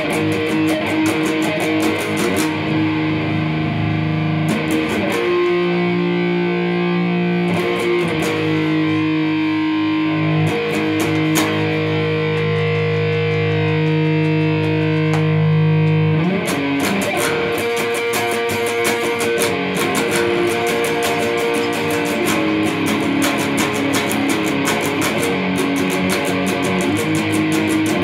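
Electric guitar playing an instrumental piece: long held notes and chords through the first half, then quicker picked notes from about halfway through.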